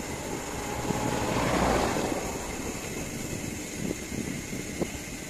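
A van passing by in the opposite lane, its engine and tyre noise swelling to a peak about a second and a half in and then fading. Underneath, a steady rush of wind on the microphone of a moving bicycle.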